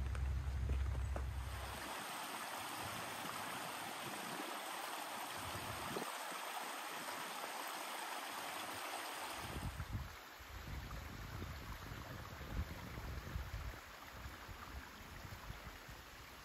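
Small stream running over stones, a steady hiss of flowing water that grows fainter about ten seconds in. A low, uneven rumble comes in near the middle and runs on under the water sound.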